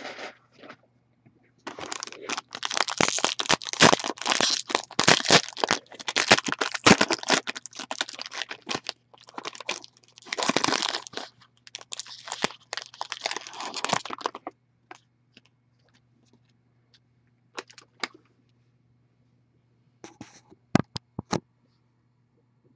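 Foil wrapper of a trading-card pack torn open and crinkled by hand, a dense crackle lasting about twelve seconds, followed by a few short clicks near the end as the cards are handled.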